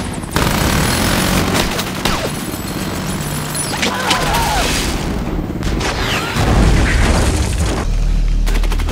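Battle-scene sound of heavy automatic gunfire, starting abruptly about a third of a second in, mixed with booms; a deep rumble grows stronger in the second half.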